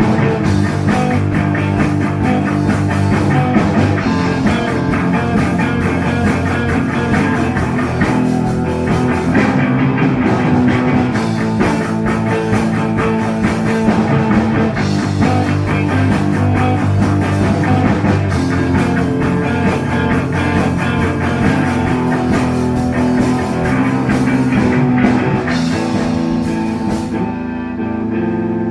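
Rock band playing an instrumental passage with electric guitar, bass and drum kit. Near the end the drums drop away and the guitar is left ringing.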